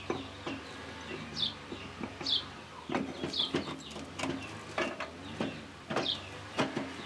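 Metal parts of a walk-behind tractor's half-shaft assembly clicking and knocking irregularly as a spacer washer is fitted and the parts are handled. A small bird chirps about four times in the background, each a short falling note.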